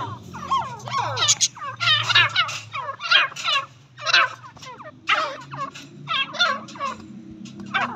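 Grey francolins calling: a rapid run of warbling, chattering calls that come in quick bursts and thin out near the end, over a steady low hum.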